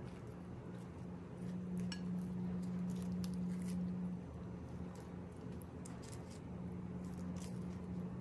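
Charred skin being peeled by hand off fire-roasted eggplants: soft crackling and scattered small clicks as the brittle flakes come away and drop onto a ceramic plate, over a steady low hum.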